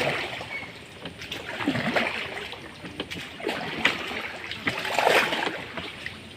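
Oars of a hand-rowed boat dipping and splashing through the water, several strokes about a second and a half apart.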